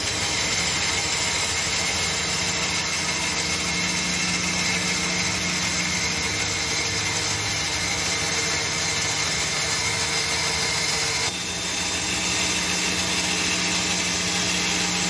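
Bandsaw running steadily with its blade cutting slowly through a wood block along a curve, a constant motor hum under the noise of the cut.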